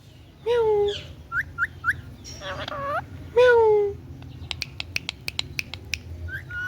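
Indian ringneck parrot vocalizing: three drawn-out, voice-like calls that bend in pitch, with short rising chirps between them, then a rapid run of sharp clicks.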